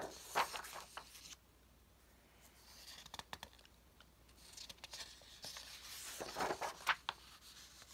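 Sheets of printed paper rustling and sliding against each other as they are lifted, turned over and laid down on the stack. There is a flurry at the start, a lull of about a second and a half, then more handling for about four seconds.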